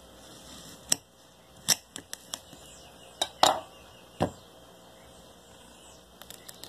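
Kitchen knife cutting through a tiny watermelon on a glass plate: a string of sharp clicks and taps as the blade goes through the rind and knocks the plate, the loudest about halfway through, then a few faint ticks as the halves are pulled apart near the end.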